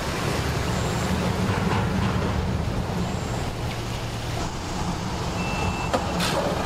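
Engine idling steadily with a low hum, and a short click near the end.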